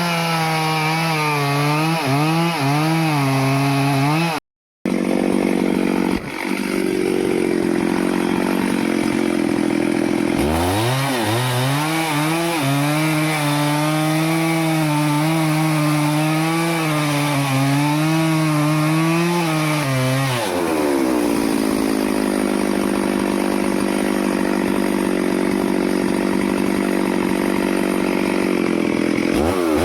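Stihl chainsaw cutting teak wood. The engine pitch drops and wavers while the chain is loaded in the cut, then rises to a steady high rev near the two-thirds point as it comes out. There is a brief break about four seconds in.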